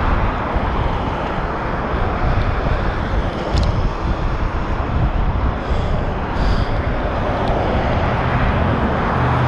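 Cars driving through an intersection: a steady, dense wash of road and engine noise.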